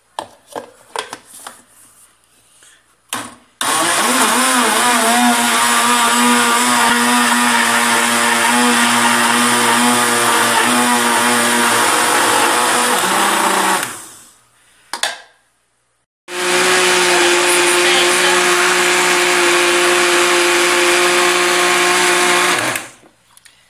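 Countertop blender motor running at speed, mixing liquid pancake batter. It runs for about ten seconds, stops sharply, then starts again for about six more seconds and cuts off. A few light knocks come before it first starts.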